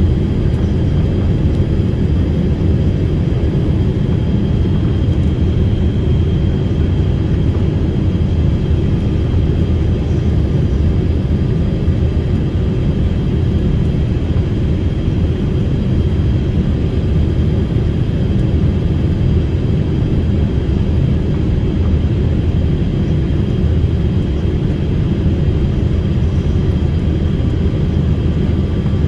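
Steady cabin noise of an airliner in flight, heard from inside the passenger cabin: a constant low rumble of engines and airflow with a faint steady high whine.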